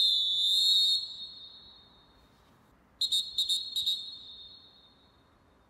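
Fox 40 Classic pealess referee whistle: one blast of about a second with a wavering pitch, then, about three seconds in, a choppy blast broken into several short toots that also wavers. Each blast rings on in the stadium's echo as it fades.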